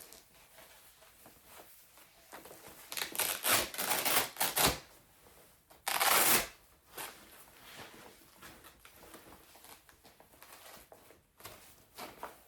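Velcro straps of air-compression leg massager wraps being pulled open: several short rips about three to five seconds in, then one longer, louder rip about six seconds in, with fabric rustling between.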